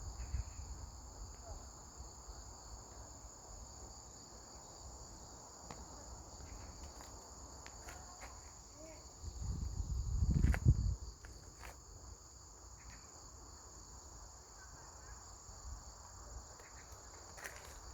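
A steady, high-pitched chorus of insects chirring without a break. About halfway through, a low rumble swells for a couple of seconds and then fades.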